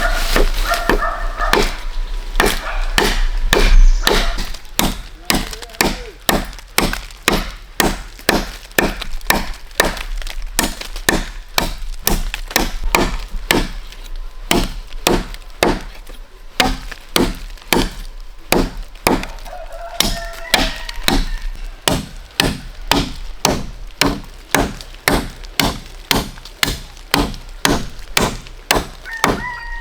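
Bamboo being chopped with a blade, in steady, evenly paced strikes of about two a second.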